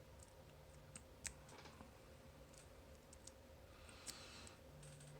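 Faint, sparse metal clicks and a brief scrape about four seconds in, as a small wiper-insert tension tool is worked into the keyway of a tiny cruciform bike lock.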